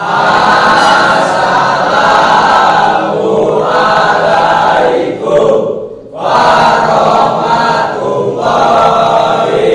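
A class of schoolboys singing together in unison, loud and sustained, with a short break about two-thirds of the way through before the next phrase.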